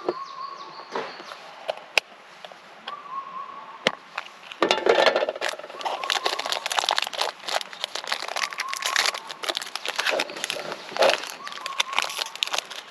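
Crinkling and rustling of something being handled, with dense irregular clicks that get busier about four and a half seconds in.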